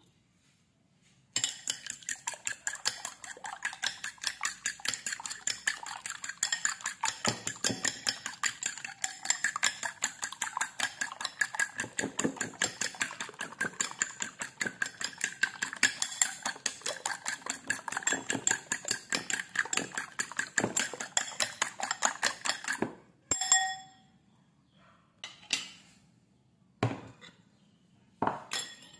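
A fork beating raw eggs in a white bowl: fast, steady clinks of the tines against the bowl for about twenty seconds, starting a second or so in. It ends with one loud ringing clink, followed by a few quieter knocks.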